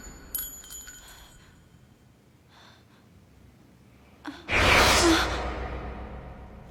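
Animated fight sound effects: the fading tail of a blast and a few thin metallic rings, then about four and a half seconds in a single loud gunshot blast that dies away over about two seconds.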